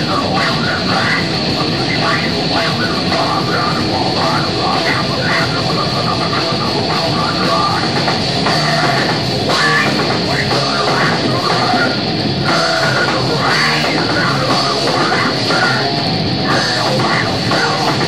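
Live heavy metal band playing at full volume: distorted electric guitars, bass and drum kit, with a vocalist singing into a microphone over them.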